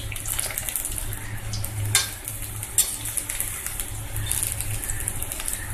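Onion pakoras deep-frying in hot oil in a kadhai, a steady sizzle and crackle, with a slotted spoon clicking against the pan twice, about two seconds in and again a moment later.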